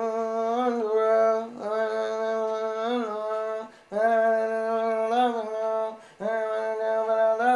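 A man singing a wordless melody in four long phrases of held, steady notes with small pitch bends, with short breaks between them.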